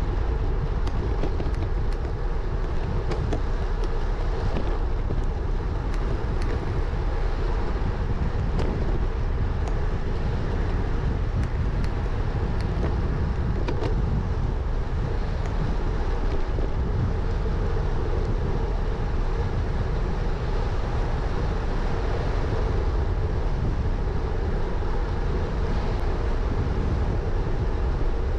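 Steady wind buffeting on a handlebar-mounted GoPro Hero 9's microphone over the rumble of road-bike tyres rolling on tarmac, with a few faint ticks from road vibration.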